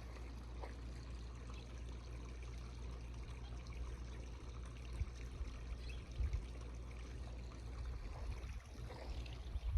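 Steady trickling water over a constant low rumble, with a few faint ticks.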